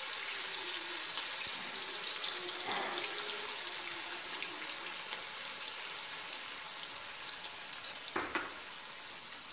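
Chicken pieces deep-frying in hot oil in a kadai: a steady sizzling hiss that slowly fades, with a short louder crackle about three seconds in and again near the end.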